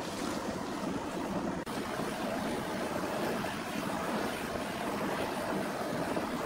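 Steady rushing noise of a lathe spinning a wooden bowl while a gas blowtorch flame plays on the wood. It breaks off for an instant about a second and a half in.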